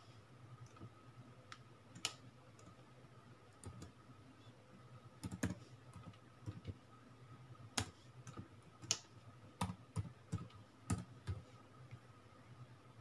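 Typing on a Huawei Matebook D15 laptop keyboard: scattered, irregular key clicks, sparse at first and busier in the second half, over a faint steady hum.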